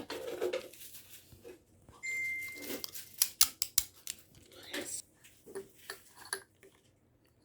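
Cutlery and tableware clicking and clinking as butter is put on a pancake stack, with a quick run of sharp clicks about three seconds in and a brief steady high tone just before them.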